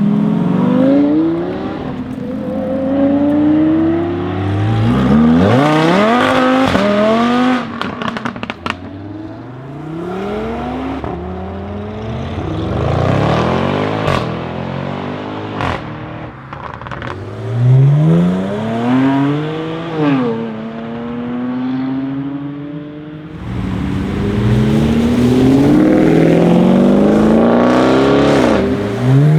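Audi RS6 C7's twin-turbo V8, fitted with an Akrapovic exhaust, accelerating hard several times: the note climbs steeply, breaks and drops at each upshift, then climbs again. Short sharp exhaust crackles come in between the pulls.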